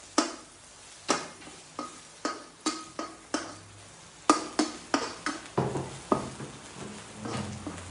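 Metal spatula stirring chopped garlic in a non-stick wok. It gives irregular sharp taps and scrapes against the pan, about two a second, over a faint sizzle of garlic frying in oil.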